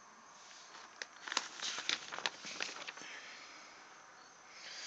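Paper instruction sheet rustling and crackling as it is unfolded and turned, a quick run of crinkles from about one to three seconds in.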